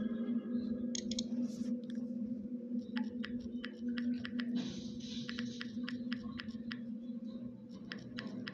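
Taps on a touchscreen keyboard while a message is typed, clicks at a few a second starting about three seconds in, over a steady low drone.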